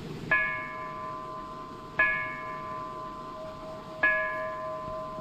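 A small hanging metal bell struck three times, about two seconds apart. Each stroke rings on with several clear tones and slowly fades.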